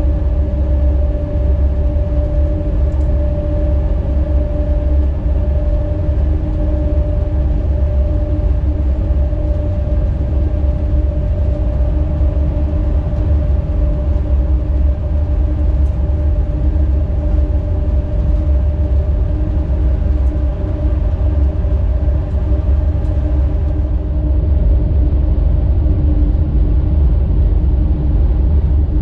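Rd2 electric locomotive running with a freight train: a steady low rumble with a constant electric hum over it. The highest hiss drops away suddenly about five seconds before the end.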